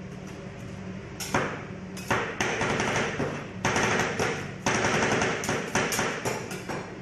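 Two metal spatulas chopping and scraping ice cream on the frozen steel plate of a rolled-ice-cream counter. Sharp clacks come as the blades strike the plate, about eight at uneven intervals, with rough scraping in between.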